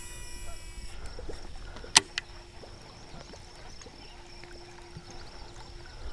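Baitcasting reel just after a cast: the spool's high whir fades out within the first second, a sharp click comes about two seconds in, then a faint steady hum while a chatterbait lure is reeled back through choppy water.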